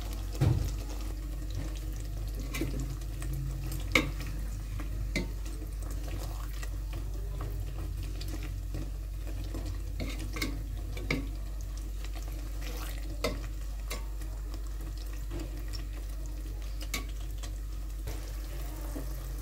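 A metal spoon stirring and clinking against an aluminium pot as fried rui fish pieces are set into thick curry gravy, with scattered sharp clicks over the gravy's faint sizzle and a steady low hum.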